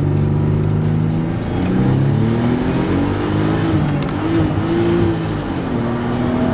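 Nissan 300ZX Twin Turbo's 3.0-litre twin-turbo V6 heard from inside the cabin while driving. The engine note climbs in pitch under acceleration from about two seconds in and drops away near the end.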